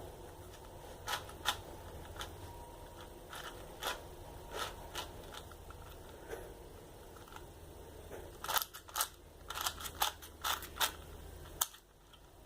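New 4x4 speed cube being turned by hand: sharp plastic clicks of its layers, a few scattered turns at first, then a quick run of turns in the last few seconds. The audio cuts out suddenly about a second before the end.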